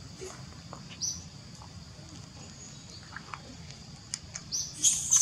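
Short high-pitched animal squeaks: one about a second in, then a quick run of louder ones near the end, with a few faint clicks between them.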